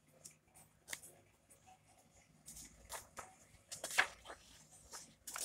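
Faint, scattered paper rustles and light taps as the pages of a paperback manga volume are handled and turned.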